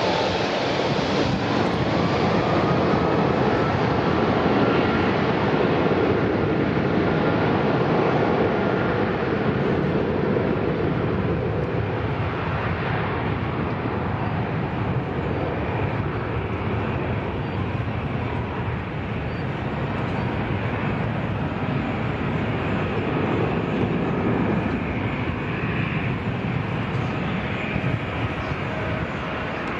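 Boeing 757 freighter's twin jet engines spooling up to takeoff thrust, with a rising whine in the first few seconds. Then a loud steady jet roar through the takeoff roll, easing a little as the aircraft accelerates away down the runway.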